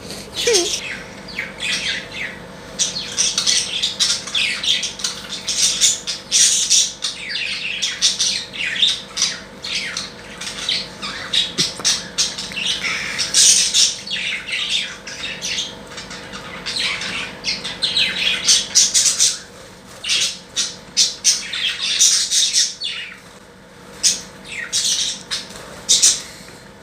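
Pet birds squawking and chirping in dense, quick chatter of short high calls, over a faint steady hum.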